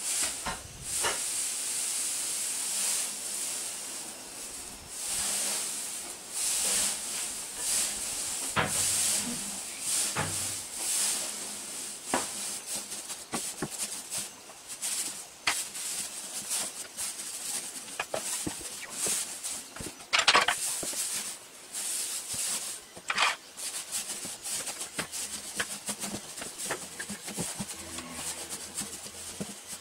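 Dry hay rustling in repeated swishes as it is gathered and stamped down into a wooden crate for baling, with scattered sharp knocks.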